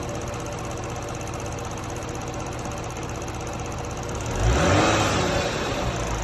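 Toyota Crown 3.5 Athlete's 3.5-litre V6 idling, then revved once about four seconds in, its pitch rising and falling back to idle within a couple of seconds. The owner hears a rattle and a whine from this engine and suspects an abnormal noise.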